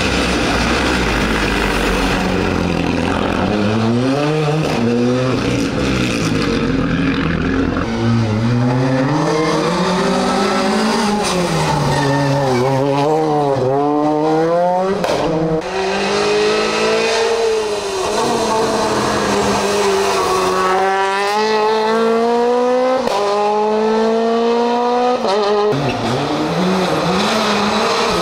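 Rally car engine working hard on a stage, the revs rising and falling through the corners, then climbing through several quick upshifts, each rise cut off by a sudden drop in pitch.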